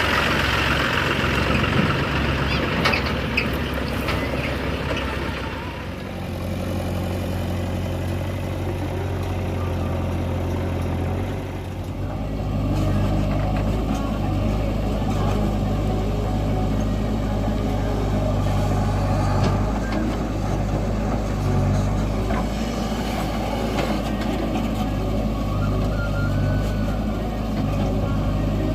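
Heavy diesel machinery running steadily during mud loading, the engine note shifting in pitch and load about six seconds in and again about twelve seconds in. Some sharp clicks are heard in the first few seconds.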